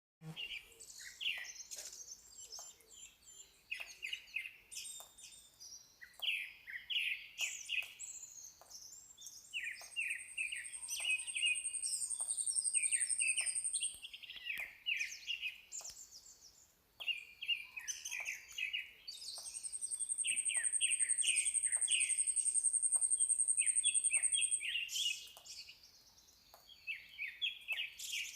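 Several birds chirping and calling in quick repeated phrases throughout. A very high, even buzzing trill rises over them twice, each lasting about five seconds, and is the loudest sound.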